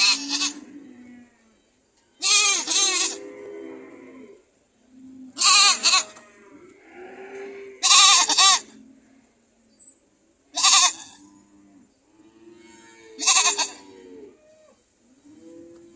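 Goats screaming: six loud, shrill calls about two and a half seconds apart, with softer, lower bleats between them.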